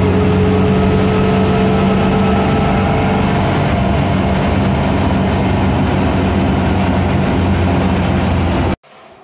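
VW Super Beetle Baja Bug's air-cooled flat-four engine running steadily under way, heard from inside the cabin. It cuts off suddenly near the end, followed by a short knock.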